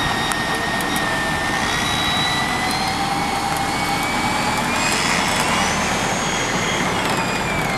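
Land Rover Defender's front winch whining under load as it hauls the vehicle up a slope, over the engine running. The whine climbs in pitch about five seconds in and drops back near the end.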